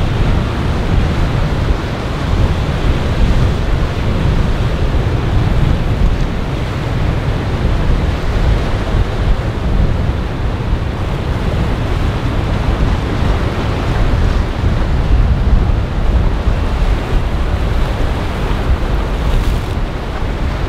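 Wind buffeting the microphone over rough, breaking sea, a continuous rushing noise heaviest in the low end, with the wash of a passing flybridge motor yacht's wake.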